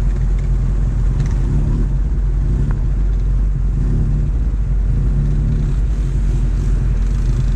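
ATV engines running close by, a steady low rumble with the engine speed rising briefly a few times as one ATV pulls away through the mud.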